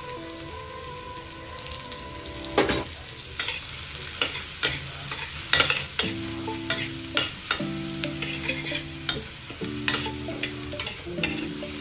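Chopped garlic and shallot sizzling in hot oil in a stainless-steel wok, stir-fried with a metal spatula that scrapes and clinks against the pan, the scrapes coming often from about two and a half seconds in.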